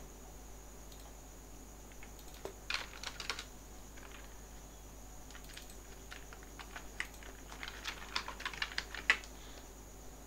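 Typing on a computer keyboard: a short run of keystrokes a couple of seconds in, then a longer run near the end, with one louder key tap.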